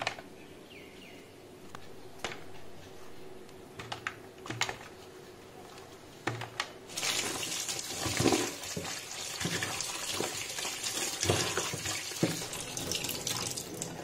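A few light knocks of small white brinjals handled on a woven bamboo tray, then, about seven seconds in, a kitchen tap starts running into a stainless steel sink, splashing as the brinjals are rubbed clean under the stream.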